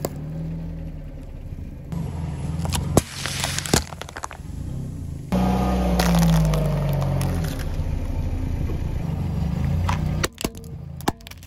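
A car tyre rolls slowly over small objects and crushes them in turn, over the low hum of the car's engine. Pine cones crack with a couple of sharp snaps a few seconds in, a foil-wrapped Kinder Surprise chocolate egg is crushed with a longer crunch about halfway, and a plastic toy pistol breaks with several sharp cracks near the end.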